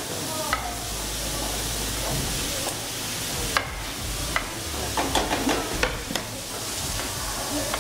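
Diced chicken and vegetables sizzling in a frying pan as they are stir-fried, with the spatula clicking and scraping against the pan now and then.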